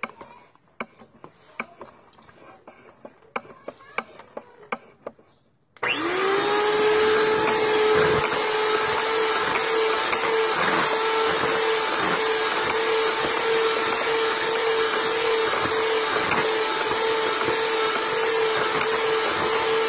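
Electric hand mixer beating cake batter: a few light knocks, then about six seconds in the motor starts, spins up quickly and runs at a steady, loud whine.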